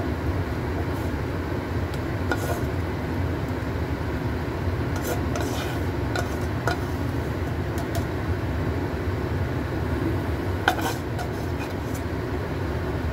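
A plastic spatula scraping and tapping against a wok and a ceramic bowl as minced beef is pushed out and spread over steamed egg, with scattered clicks, the loudest a sharp clink near the end. Under it runs a steady low rumble.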